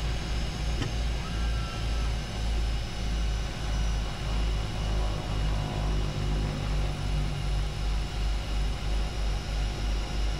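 The de Havilland Canada DHC-6 Twin Otter's two PT6A turboprops running at low taxi power, heard from the cockpit, as the aircraft clears the runway after landing. A deep pulsing beat from the two propellers running slightly out of sync quickens from about one pulse a second to two or three, over a steady turbine whine.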